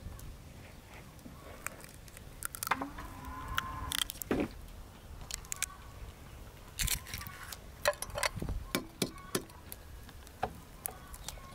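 An egg is tapped and cracked against a glass mixing bowl and broken into flour: a scatter of sharp clicks and taps of shell on glass.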